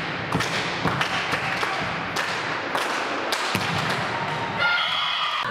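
Volleyball being struck during a rally: a string of sharp thumps at irregular intervals, heard over a dense background of hall noise.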